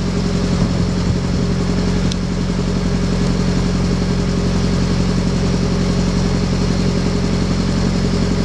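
Slow boat's engine running steadily at cruising speed, a constant low hum with a fast, even pulse.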